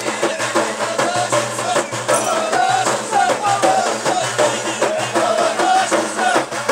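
Ahidous performance from the Middle Atlas: a line of men singing together, accompanied by bendir frame drums beaten in a steady rhythm.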